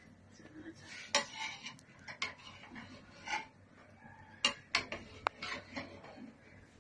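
A slotted spatula mixing layered biryani rice in a metal cooking pot: soft rustling of rice with about six sharp clacks as the spatula knocks against the pot's side and rim.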